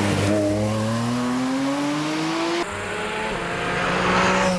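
Porsche 718 Spyder RS's naturally aspirated flat-six engine accelerating, its pitch rising steadily. After an abrupt cut about two and a half seconds in, the car is heard approaching at high revs, growing louder toward the end.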